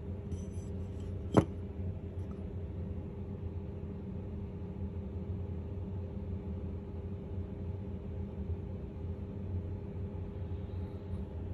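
Steady low electrical or machine hum in a small room, with a single sharp click or tap about a second and a half in.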